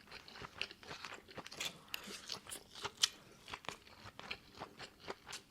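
A person chewing food close to the microphone: a run of small, irregular crisp clicks, a few a second, with one louder crunch about three seconds in.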